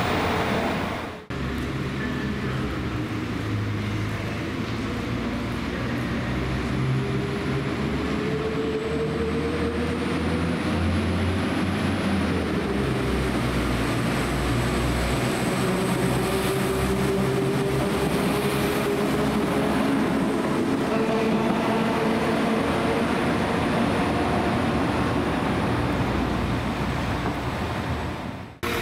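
A train at a station platform: a steady low running rumble with a whine that slowly rises and falls in pitch.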